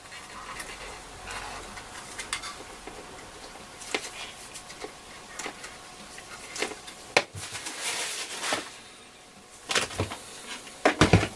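Small clicks, taps and rustles of a transistor radio's case and parts being handled with gloved hands during reassembly, with a cluster of louder knocks near the end.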